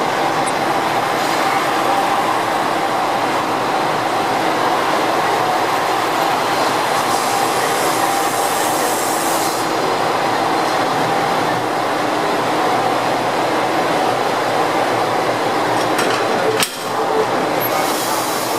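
JR Shikoku 2000-series diesel railcars running steadily as one train creeps slowly up to the other for coupling, with a steady whine, two spells of hissing and a single sharp knock near the end.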